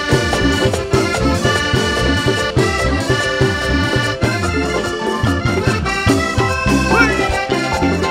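Live band music led by a button accordion playing a melody line, over a moving bass and steady percussion, with no singing.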